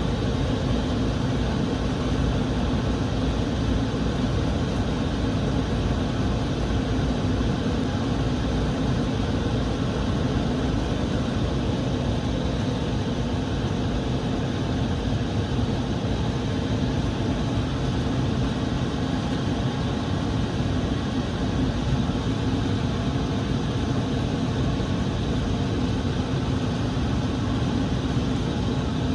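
Gas furnace running after being switched back on: a steady, unchanging mechanical hum with rushing air.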